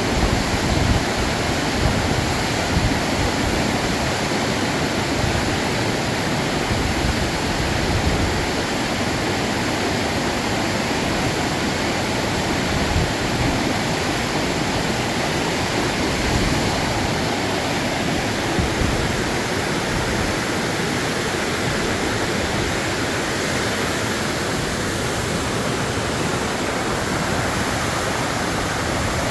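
Waterfall: water falling and flowing in a steady, dense rushing hiss.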